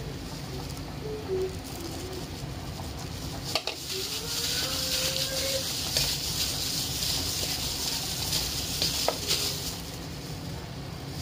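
A hand mixing raw chicken wings in a stainless steel bowl, making a steady hiss from about three and a half seconds in until near ten seconds, with a few sharp knocks against the bowl.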